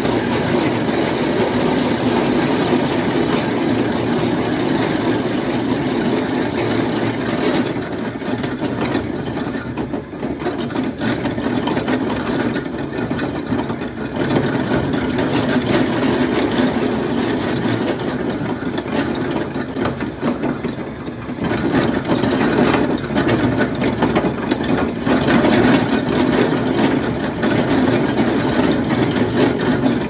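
Belt-driven C.S. Bell cast-iron grist mill running steadily and grinding dried corn kernels into cracked corn, a continuous loud mechanical grinding rattle that eases briefly twice.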